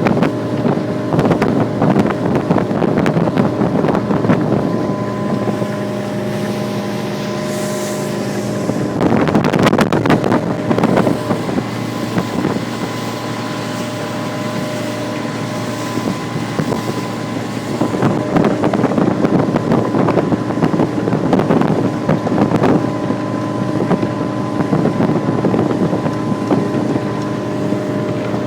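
Sea Ray motorboat under way, its engine running at a steady drone. Wind buffets the microphone, loudest about nine seconds in and again from about eighteen seconds.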